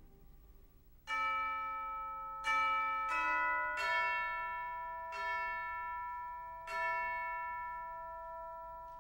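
Tuned bells in a music score strike six notes, about a second in and then at uneven intervals. Each note rings on and fades slowly under the next.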